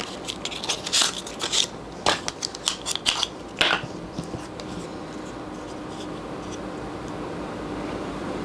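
Small cardboard box being opened and handled, a run of short scrapes and clicks over the first three or four seconds, then only a faint steady hum.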